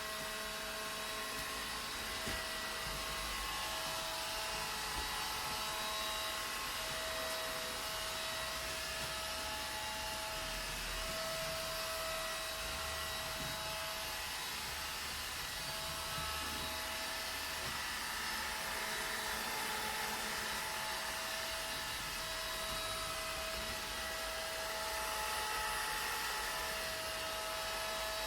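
Vacuum cleaner motor running steadily: a constant whine over an even rushing hiss, with no change in speed.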